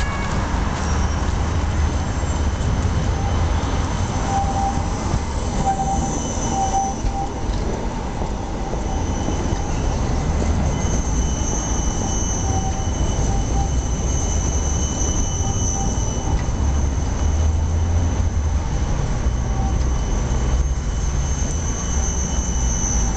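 Siemens Combino low-floor tram rolling past close by on curved track: a steady low rumble of the wheels and running gear, with thin high squealing tones from the wheels on the curve.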